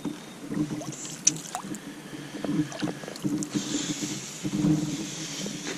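Canoe being paddled: a wooden paddle dips and pulls through calm water in repeated strokes, with splashing and dripping and a few light clicks. The splashing is strongest from a little past halfway.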